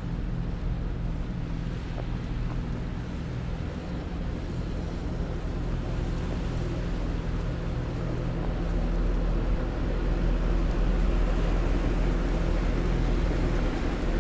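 Steady low mechanical hum of a city street with a hiss over it, growing a little louder in the second half.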